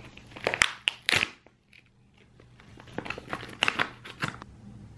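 Clear plastic packaging bag crinkling and rustling in the hands as it is opened and a small replacement gun part is taken out. The sound comes in two bouts with about a second of near quiet between them.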